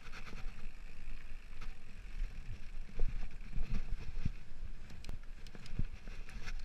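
A mountain bike rolling over a rocky trail, with wind buffeting the camera microphone and scattered knocks and rattles from the bike and tyres over stones.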